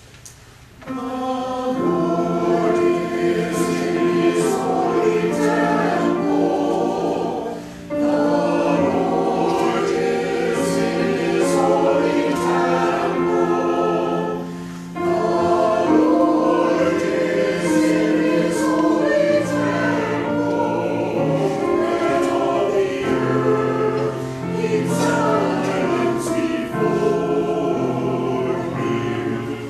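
Church choir of mixed men's and women's voices singing in parts, starting about a second in, with short pauses between phrases around 8 and 15 seconds.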